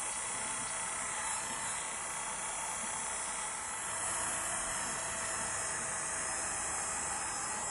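Corded electric hair clippers running steadily as they shear through long hair, under a constant hiss.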